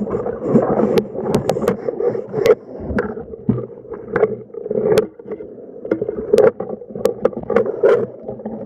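Choppy sea water sloshing and splashing, with many sharp knocks scattered through it.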